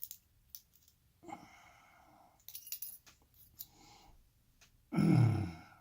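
Small metallic clicks and ticks from the lock cylinder and a shim being handled, with a breathy exhale a little over a second in and a louder voiced exhale, like a sigh, near the end.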